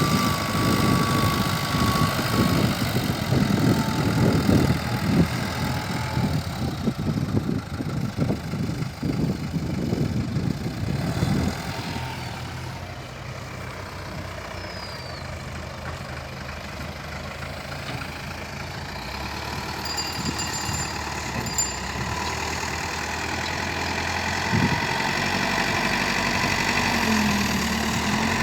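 Tata vehicle's engine running as the repaired transmission is tested: loud and rough with a dense rattle for about the first eleven seconds, then settling to a quieter steady run that grows louder again near the end.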